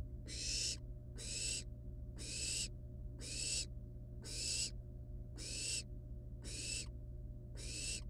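Barn owl nestlings giving their rasping, snore-like hissing begging calls, about one hiss a second. A steady low hum runs underneath.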